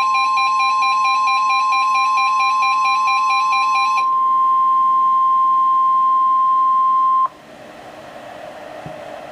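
NOAA Weather Radio's steady 1050 Hz warning alarm tone, which signals a warning about to be read. For about the first four seconds a rapidly pulsing electronic alarm beeps over it, likely the weather alert receiver's own alarm. The tone cuts off suddenly about seven seconds in, leaving radio hiss.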